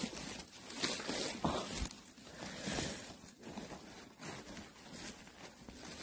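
Dry pine needles and soil rustling and crackling in irregular short bursts, with a few light knocks, as gloved hands dig around a pine mushroom wedged among rocks.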